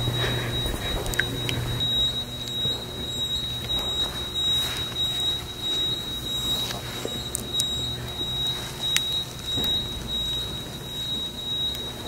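A building alarm sounding as one steady high-pitched tone, with faint scattered knocks and footsteps beneath it.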